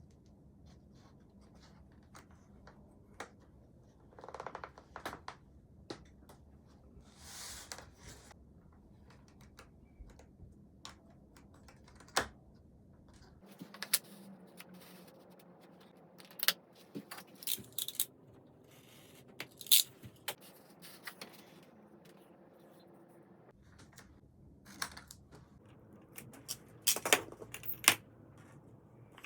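Irregular light clicks, knocks and short scrapes of small parts and tools being handled by hand, busier in the second half, with a cluster of sharper knocks near the end.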